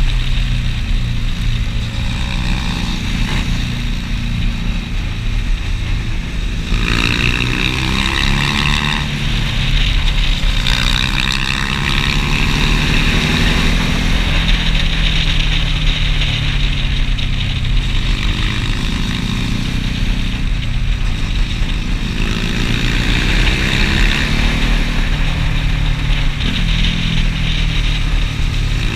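Motorcycle engine running while riding, its pitch rising and falling repeatedly with throttle and gear changes.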